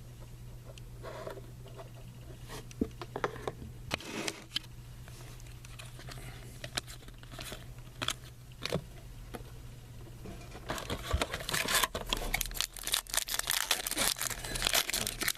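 Trading-card pack wrapper being handled and torn open, with cards rustling and flicking: light scattered clicks at first, then dense, louder crinkling from about ten seconds in. A steady low hum runs underneath.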